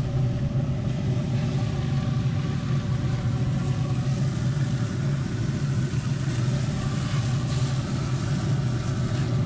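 Pellet grill running with a steady low hum from its fan and fire, unbroken and even in level.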